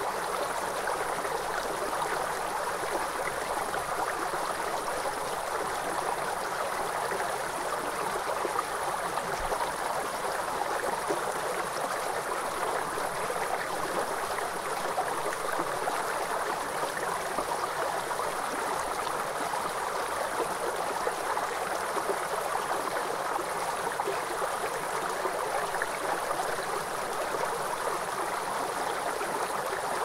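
Shallow river rushing steadily over rocks, with a steady high-pitched trill of crickets behind it.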